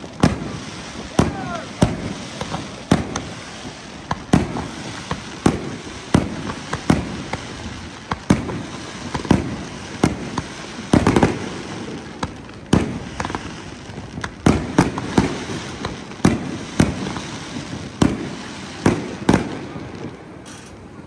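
Fireworks display: aerial shells launching and bursting, a sharp bang about every second with crackling between. A few falling whistles sound in the first couple of seconds, and a denser volley of bangs comes about eleven seconds in.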